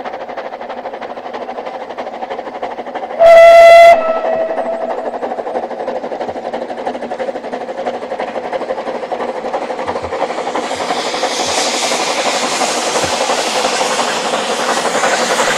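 Narrow-gauge steam locomotive working a passenger train, giving one short, loud blast on its whistle about three seconds in. From about ten seconds in, the hiss of its exhaust steam grows louder as it comes closer.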